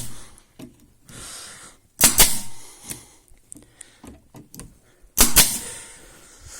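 Pneumatic stapler gun, run off a homemade air compressor, firing twice about three seconds apart, each shot a sharp crack as it drives a fastener into chipboard.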